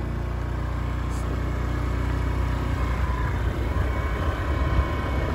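Small motor scooter running steadily while being ridden: a low engine drone with a faint steady whine above it.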